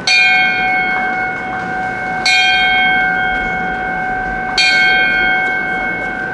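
A small hanging wedding bell struck three times, about two and a quarter seconds apart. Each strike rings on steadily with several clear tones until the next one. It is rung four times in all, for happiness, as the couple's send-off.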